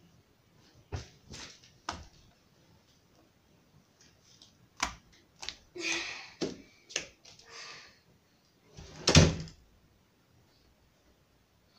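Scattered knocks and thumps in a small room: a few short ones near the start, a cluster in the middle, and the loudest thump about nine seconds in.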